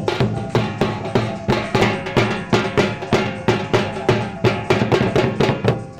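Talempong, sets of small bronze kettle gongs in wooden racks, struck in a quick steady rhythm of ringing notes, about four to five a second, with a gandang barrel drum beating along: traditional Minangkabau ensemble music.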